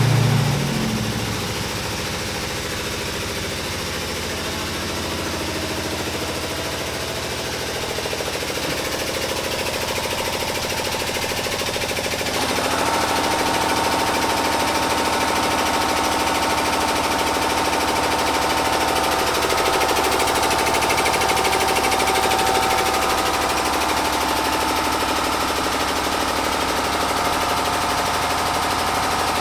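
Air-powered jack running with a steady fast pulsing as it raises the truck's front end. About twelve seconds in, a higher-pitched whine joins and the sound gets a little louder.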